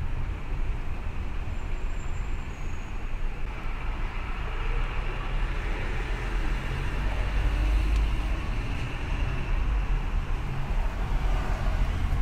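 Steady road noise of a car being driven: a low tyre and engine rumble with a hiss that swells a little partway through.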